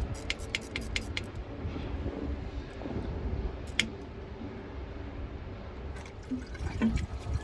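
Metal wrenches clinking and jangling together: a quick run of light clinks in the first second or so, one clink near four seconds and a few more near the end, over a low rumble.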